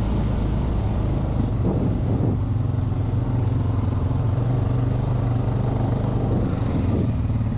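Honda ATV engine running at a steady pitch while the quad is ridden along a sandy trail, heard close up from on board.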